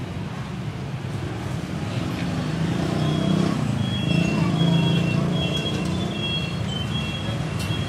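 Road traffic running past, a low rumble that swells about halfway through and then eases, with a run of short, high-pitched beeps at two alternating pitches from about three seconds in.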